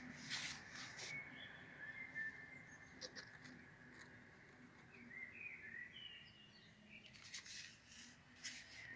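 Very quiet scene with a few brief rustles of tomato leaves and phone handling as the camera is pushed through the plants, over a faint steady high chirping.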